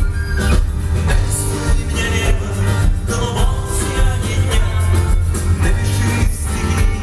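A live rock band playing loudly, with a steady drum beat, heavy bass and guitars, heard as a concert recording from the audience.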